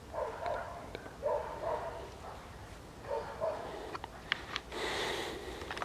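Siberian husky puppy barking in three short bursts, followed near the end by a brief rustling with a few clicks.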